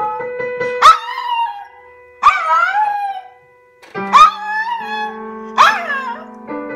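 Maltese dog howling along to music in four short yowls, each starting sharply and bending up then down in pitch, over steady held notes of the accompaniment.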